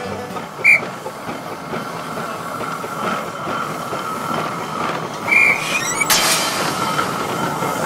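Steam train running: a steady rush of rolling rail noise, with two short high toots about a second in and again after five seconds, and a sudden burst of noise about six seconds in.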